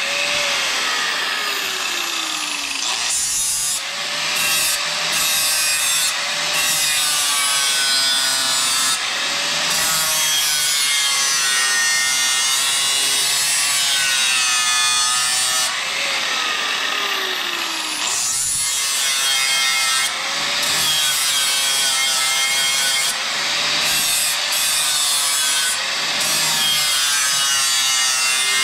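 Milwaukee corded angle grinder with a sanding disc grinding the edge of a steel sharpshooter spade to sharpen it. The motor's pitch sags and recovers as the disc is pressed onto and eased off the blade, with two clear drops in pitch near the start and about halfway through.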